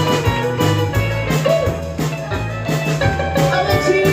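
Live rock and roll band playing an instrumental break with no singing: drums keep a steady beat under a bass line while a lead instrument plays a melody with bending notes.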